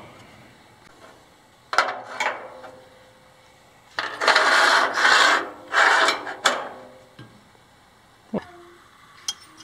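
An OSB board scraping and rubbing against aluminium tube framing as it is shifted into place: a knock about two seconds in, then two long rough scrapes, and a single knock near the end.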